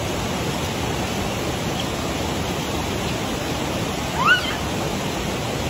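Steady rush of a fast river running over rocks. A little past four seconds in comes one short high call that rises and then falls in pitch.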